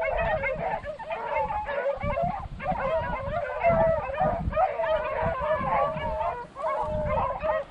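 A pack of beagles baying together in many overlapping voices, the cry of hounds running a rabbit's scent trail. Wind rumbles on the microphone underneath.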